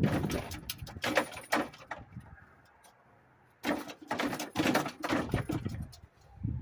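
Hand tools clanking and scraping on the metal of an old lawn mower while working at a stuck bolt, in two bursts with a quiet gap of about a second and a half between them.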